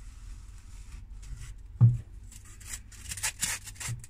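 A penoplex foam block is pushed and slid across the board of a hot-wire cutter, rubbing and scraping against it. There is one dull thump about two seconds in, then a series of short, high scraping rubs as the cut foam is handled and lifted off.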